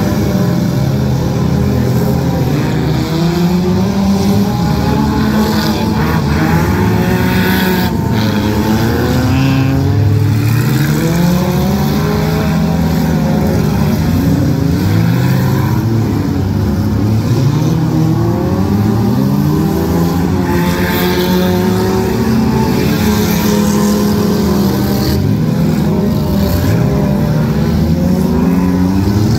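Several demolition derby stock cars running and revving at once, their engine pitches repeatedly rising and falling as they accelerate and reverse around the arena, with an occasional sharp knock.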